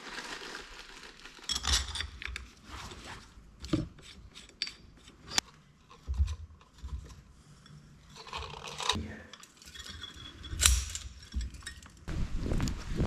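Metal clutch parts and hand tools clinking and scraping against each other, with irregular sharp clicks and a few dull knocks, as the clutch is worked on and refitted.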